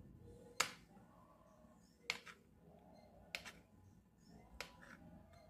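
Kitchen knife chopping through a stack of cheese slices, the blade striking the plate beneath with four sharp clicks, about one every second and a quarter.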